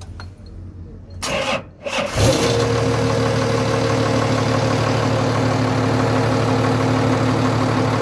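Toyota forklift's six-cylinder diesel engine cranked over and firing about two seconds in, then running at a steady idle on its freshly calibrated and reinstalled injection pump.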